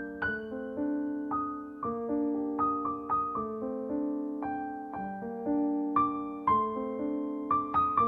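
Background music: a soft piano melody with chords, each note struck and fading.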